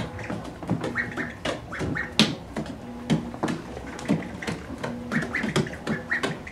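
Ducklings' webbed feet tapping and slapping on a hard wood-look floor as they walk along, a quick uneven run of taps, mixed with short high duckling peeps.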